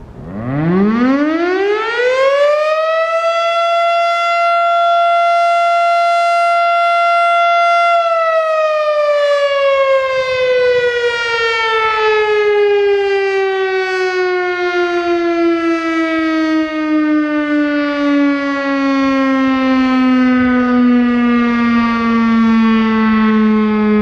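Federal Signal STH-10A electromechanical warning siren sounding its daily noon test. It winds up quickly to a single steady tone, holds it for about five seconds, then slowly winds down with its pitch falling steadily.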